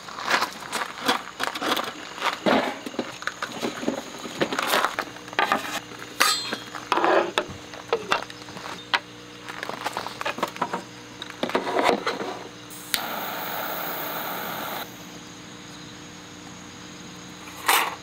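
Camp gear being handled: a run of light knocks and metallic clinks as items are hung on a metal rack bar and set down on a table. Past the middle, a steady hiss of about two seconds that starts and stops abruptly, from a jet lighter lighting a mosquito coil in a metal holder.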